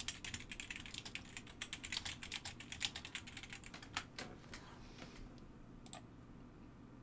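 Typing on a computer keyboard: a fast run of keystrokes for about three seconds, then a few single clicks after about four seconds before the typing stops.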